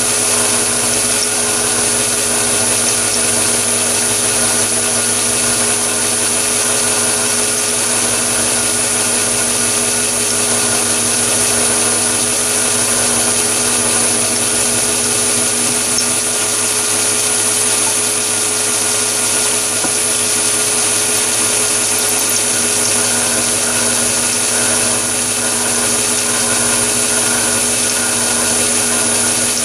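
Metal lathe running steadily at about 580 rpm while a drill bit fed from the tailstock bores into the end of the spinning workpiece: a steady motor and gear whine with a high, thin tone on top.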